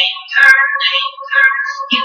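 A high-pitched voice, sung or electronically pitched up, over music, its pitch sliding and breaking every fraction of a second.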